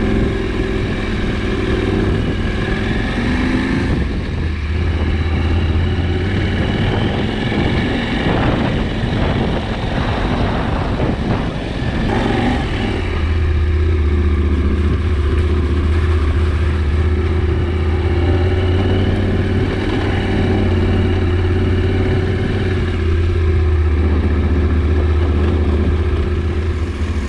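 KTM 790 Adventure's parallel-twin engine running as the motorcycle is ridden, the engine note rising and falling with the throttle, rougher and less even in the middle, then holding steady for the second half.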